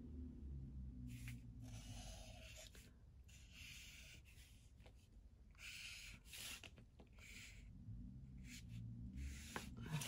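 Sharpie permanent marker drawn across paper in a series of faint scratchy strokes, each lasting up to about a second, with short pauses between them as lines are inked.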